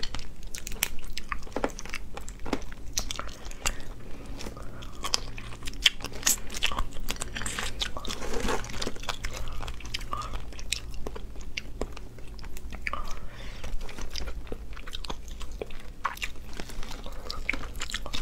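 Boiled shellfish shells cracking and crackling as they are peeled apart by hand, mixed with close-up biting and chewing of the meat. It is a steady run of small sharp crackles and clicks.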